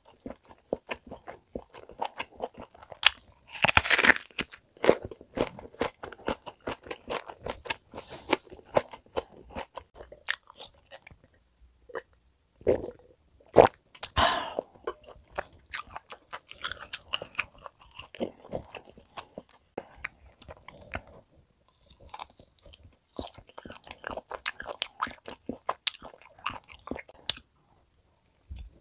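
A person chewing steak close to the microphone: wet mouth clicks and smacks in uneven runs, with a couple of short pauses.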